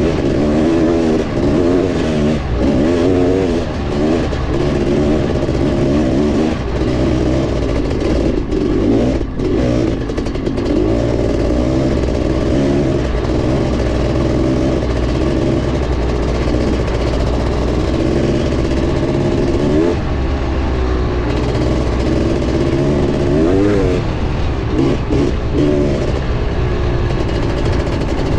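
Honda CR500's 491 cc single-cylinder two-stroke engine running under load on a trail ride. Its pitch rises and falls continually as the throttle is opened and closed.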